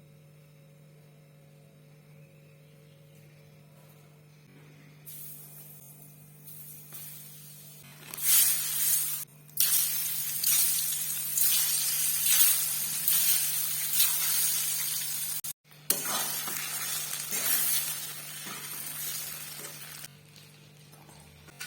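Food frying in hot oil in a pan, sizzling. It starts faint about five seconds in, turns loud about eight seconds in, and dies away near the end.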